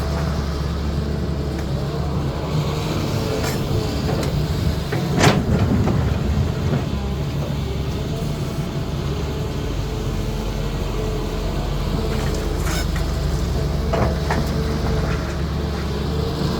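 CAT 320D excavator's diesel engine running steadily while it works. A few metallic clanks from the bucket and arm; the loudest comes about five seconds in, and two more near the end.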